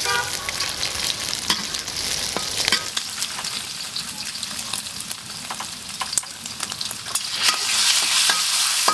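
Sliced pork sizzling as it is stir-fried in a hot pan, with a spatula scraping and clicking against the pan. The sizzle grows louder about seven seconds in.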